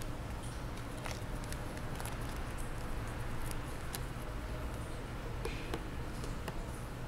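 Faint clicks and light taps of small magnetic picture pieces being handled and pressed onto a magnetic play board, scattered irregularly over a steady low hum.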